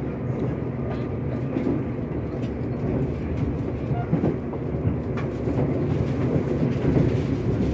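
Passenger train heard from inside the carriage while running at speed: a steady low rumble of wheels on rails, with scattered knocks from rail joints.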